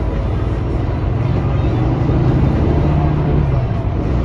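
Volvo B9R coach's rear-mounted six-cylinder diesel engine and road noise heard from inside the passenger cabin while under way. The engine hum rises slightly, dips briefly about three and a half seconds in, then picks up again.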